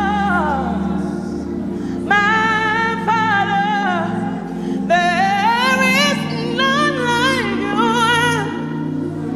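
A woman singing gospel with long melismatic runs, her voice sliding and wavering in pitch, over sustained keyboard chords.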